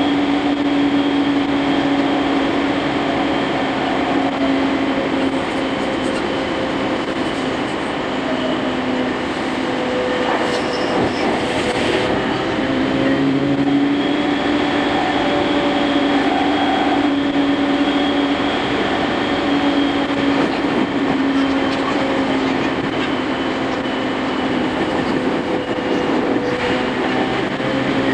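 Running noise inside a JR East E231-series electric commuter train's motor car: a steady traction-motor whine over the continuous rumble of wheels on rail. The whine's pitch sags slightly around the middle and then climbs back.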